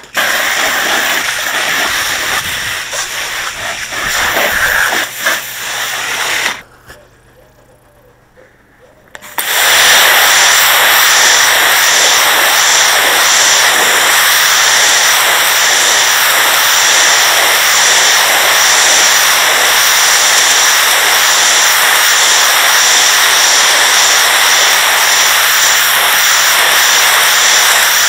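Pressure washer jet spraying water onto patio slabs, a loud hiss. It comes in uneven bursts for the first six seconds or so, stops for about three seconds, then resumes and runs steadily.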